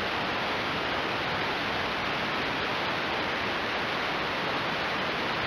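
Steady hiss of static in the broadcast audio, like a radio receiver that has lost its signal, filling a break in the automated warning voice.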